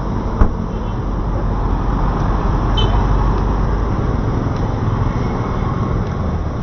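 Steady road traffic passing close by on a city street, cars and a motorcycle rickshaw, a constant engine and tyre noise with a low hum. A single sharp click comes about half a second in.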